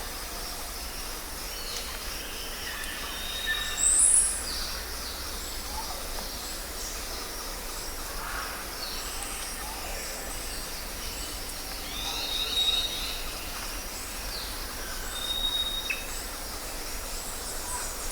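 Jungle ambience: many birds whistling and chirping over a steady background hiss. Short level whistles recur, and the loudest call, a high one, comes about four seconds in.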